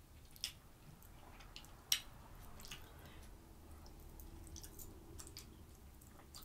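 A person chewing food close to the microphone: soft, wet mouth clicks and smacks, with a sharper click about half a second in and the loudest one just under two seconds in.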